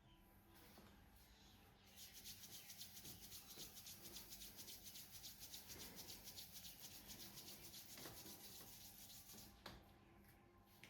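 Soft, fast rubbing strokes of a back massage, several strokes a second in an even rhythm. They start about two seconds in, stop near the end, and are followed by a sharp click.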